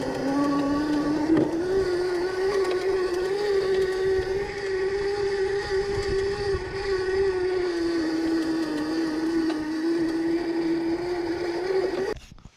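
Electric minibike's 1000-watt, 36-volt motor and chain drive whining at a steady pitch while riding at about 13 mph. The pitch climbs about a second in, sags a little later on and comes back up, over a rough rumble. The sound cuts off abruptly just before the end.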